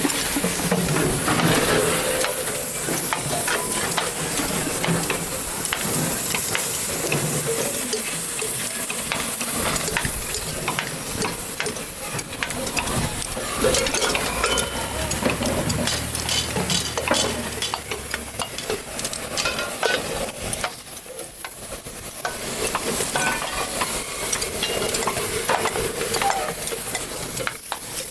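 Busy clatter of many small metallic clicks and scrapes over a hiss: scrap metal from a compressor's inner parts being worked and broken apart to separate the metals. It dips a little about three quarters of the way through.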